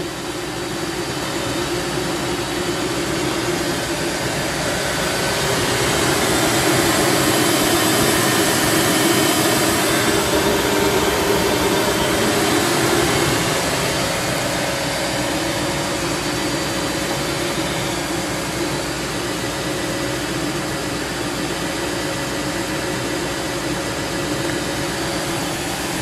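The supercharged 312 cubic-inch V8 of a 1957 Ford Thunderbird F-code idling steadily, a little louder for a stretch in the middle.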